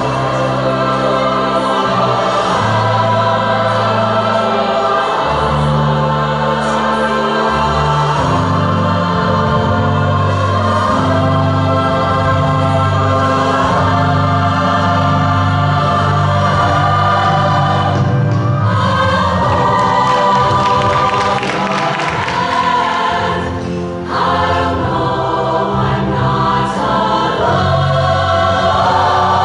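Women's show choir singing in harmony with a live backing band, the voices carried over sustained bass notes that change every second or two.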